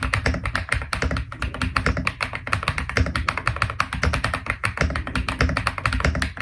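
Fast, continuous typing on a Kiiboom Phantom 98 mechanical keyboard: a rapid stream of keystroke clacks, several a second without pause.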